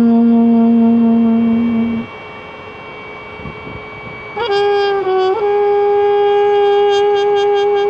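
Trumpet improvising in maqam Hijaz with long held notes. A low note is held until about two seconds in, then a short pause for breath. A higher note enters with a brief dip in pitch about a second later and is then held steady.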